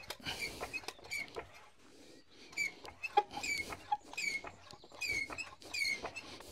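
Trolley jack being pumped to raise the car, its handle and pivots squeaking once per stroke, a short high squeak about every second, with a few knocks and a sharp metal clank about three seconds in.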